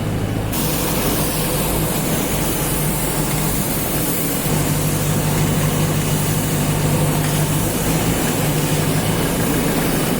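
JCB 3DX Super backhoe loader's diesel engine running steadily, its engine speed stepping up about four and a half seconds in. A steady hiss comes in about half a second in.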